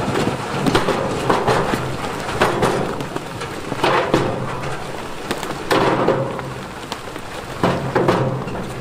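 Big stones tumbling, knocking and rumbling against each other in a series of heavy crashes, over the steady low hum of a heavy diesel engine.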